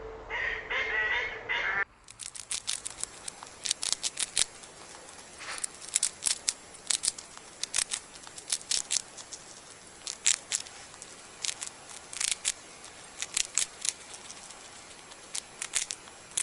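Ducks quacking: many short, harsh calls in irregular clusters, with more tonal calls in the first two seconds.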